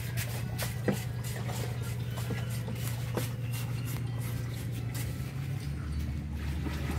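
A steady low mechanical hum that drops to a lower pitch about five and a half seconds in, with a few scattered light clicks.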